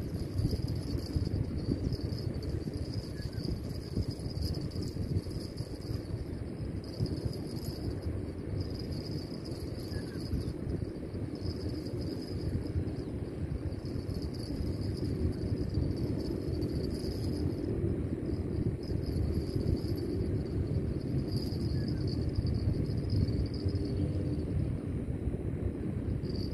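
Wind buffeting the microphone, a constant low rumble that rises and falls, with a steady high drone of insects above it.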